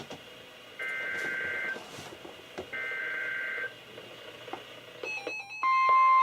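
Emergency Alert System SAME header data bursts from a NOAA Weather Radio broadcast: two harsh warbling digital bursts about a second long, nearly two seconds apart. About five seconds in, radio alert beeps start and the steady weather radio warning alarm tone comes on loud.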